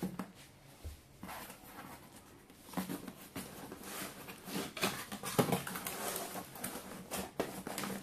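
Hands handling a cardboard box, rubbing, sliding and tapping the lid and flaps of the inner packaging. A run of scrapes and light knocks, busier from about three seconds in.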